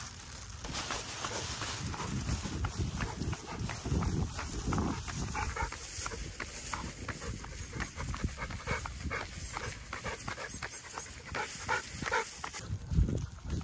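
Bernese mountain dog panting with its mouth open as it trots on a leash, over footsteps on the concrete sidewalk and a low rumble on the microphone. The panting and steps stop about a second before the end.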